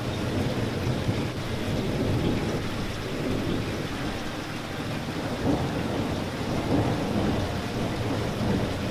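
Steady rain falling, an even wash of noise with a deep, constant low rumble under it.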